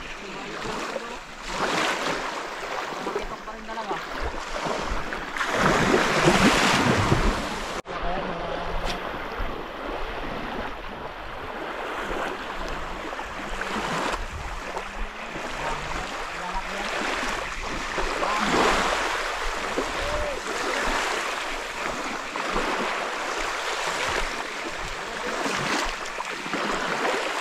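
Small waves washing on a sandy shore, with wind on the microphone, swelling loudest around six seconds in.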